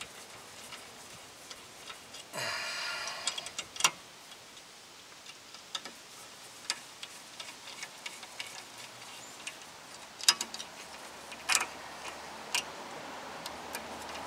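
Small metal rotor retaining screws being threaded in by hand into a brake rotor and hub: scattered light metallic clicks and ticks, with a brief harsher rattling scrape about two seconds in.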